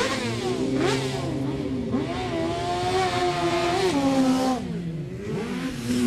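Sport motorcycles revving as they ride slowly past one after another. Their engine notes overlap and rise and fall, with a quick rising rev right at the start.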